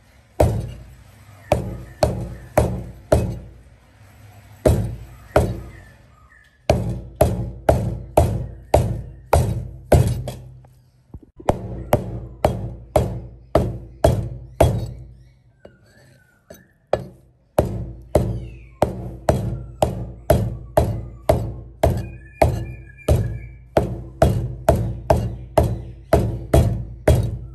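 A heavy knife chopping on a wooden cutting board: solid knocks at about two a second, in runs broken by a few short pauses, over quiet background music.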